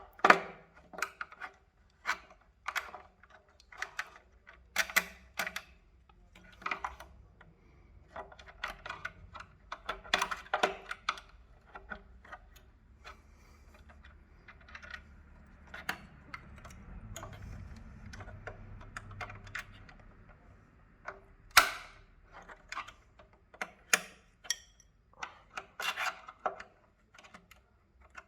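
Small metal parts and hand tools being handled during disassembly: irregular clicks, clinks and knocks, with a faint low rumble in the middle.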